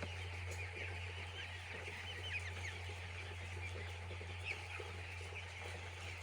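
Many broiler chicks peeping together, a dense chorus of short high cheeps, over a steady low hum.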